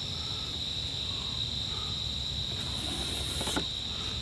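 Crickets trilling steadily in one unbroken high tone, with faint scratching of a pencil drawn along a yardstick on OSB.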